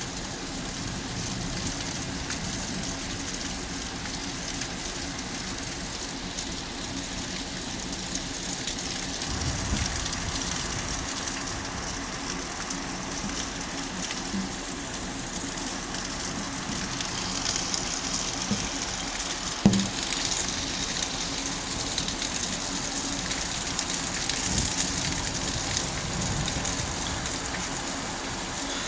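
Steady rain falling at the back of a thunderstorm, an even hiss, with a single sharp knock about twenty seconds in.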